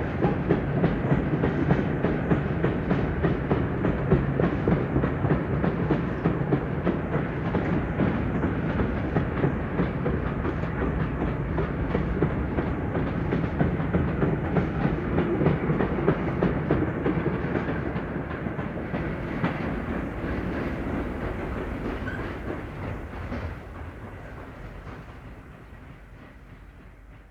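Steam railway train running on the track, a dense rumble of wheels and rail noise that fades away over the last ten seconds.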